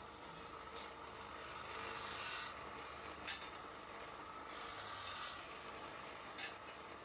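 Motor-driven grinding wheel running on steel handlebar tubes, its steady hiss rising into loud grinding bursts of a second or two as tube ends are pressed against it, with a few sharp metallic clicks.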